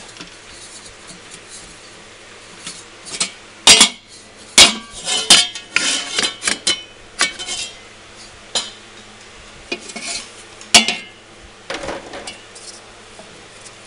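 Clanks and scrapes of a stainless steel mixer bowl and its mixing paddle being handled with the motor off. Scattered sharp metal knocks, the loudest a little under four seconds in, around five seconds in and about eleven seconds in.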